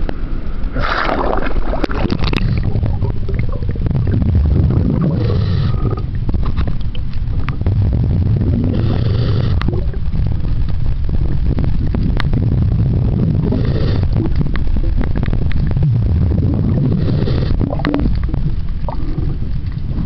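Water gurgling and sloshing around a camera held underwater, heard as a steady deep rumble with a short hissing swish about every four seconds and scattered small clicks.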